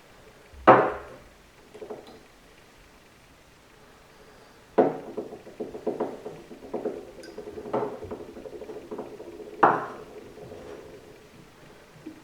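Metal transmission parts clinking and knocking as they are handled and fitted. There is a sharp clank near the start, then from about five seconds in a run of clinks with a ringing metallic tone, and another loud clank near the end.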